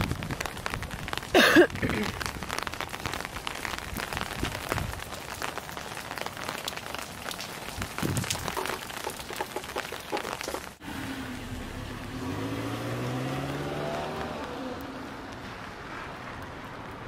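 Steady rain, many small drops ticking close to the microphone, with one brief loud pitched sound about a second and a half in. After a sudden cut, a vehicle engine rises in pitch and then fades.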